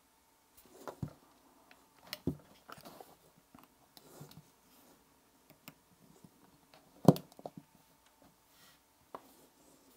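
Scattered clicks, taps and knocks of a power bank and USB-C cables being handled and plugged in on a desk, the loudest knock about seven seconds in.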